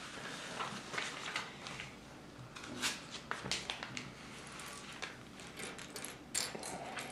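Scattered small plastic clicks and rustling as hands rummage through loose Lego pieces, with the clicks busiest about three seconds in and again near the end.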